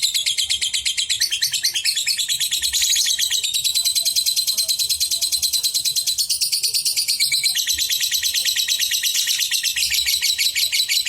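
Lovebird singing its long unbroken chattering song (ngekek). It is a rapid, even stream of high notes with no pause.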